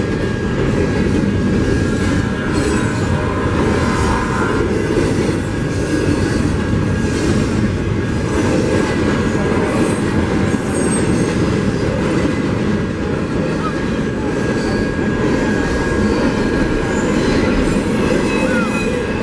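Double-stack intermodal container cars of a freight train rolling past at speed: a loud, steady rumble and clatter of steel wheels on rail, with a thin steady squeal above it.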